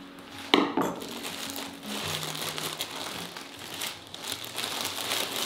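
A plastic bag and paper wrapping crinkling and rustling as a paper-wrapped loaf of bread is handled and lifted out of the bag, with one sharp click about half a second in. Soft background music runs underneath.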